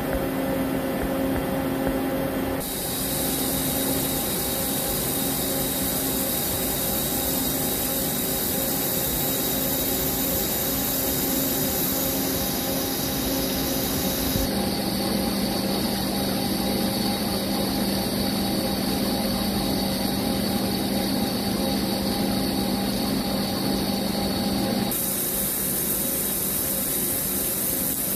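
CNC vertical lathe cutting a high-tensile brass ring: steady cutting noise with brass chips spraying off the tool and a coolant jet, over a steady machine hum. The hum and hiss change abruptly about 2.5 s in, about halfway through, and again a few seconds before the end.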